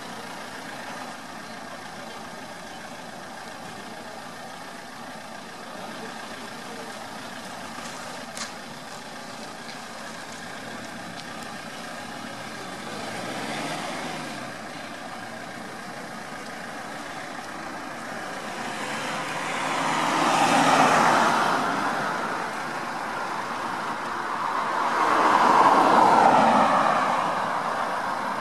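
Road traffic: cars passing by on the street, a faint pass-by about halfway through, then two louder ones near the end, each swelling up and fading away.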